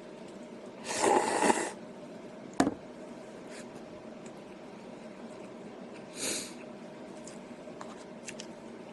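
Eating sounds from a person having instant ramen noodles: a short noisy slurp about a second in and a weaker one around six seconds, with a single sharp click between them, over a faint steady hum.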